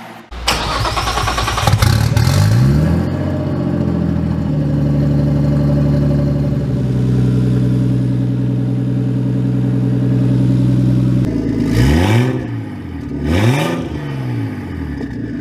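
Nissan RB25 straight-six, swapped into an S14 240SX, starts up, revs once, and settles into a steady idle. Near the end it is given two quick revs that rise and fall back to idle.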